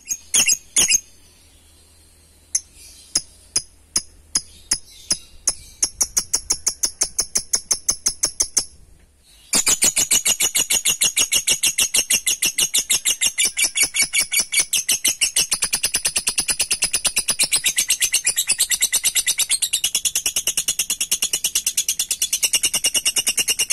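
Lovebird giving a few sharp calls, then a run of clicks that comes faster and faster, then, after a short break, a long unbroken rapid chattering trill: the 'ngekek' of an excited lovebird.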